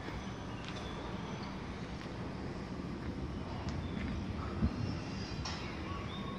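Steady low rumble of motor traffic, with a single brief knock a little over halfway through.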